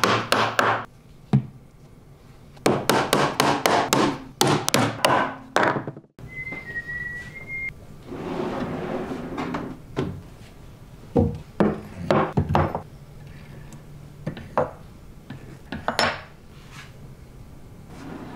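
Small hammer tapping wooden dowels into holes in a plywood drawer bottom: a quick run of sharp strikes. After about six seconds, wooden drawers slide on metal runners with a rolling rush and several knocks and clunks.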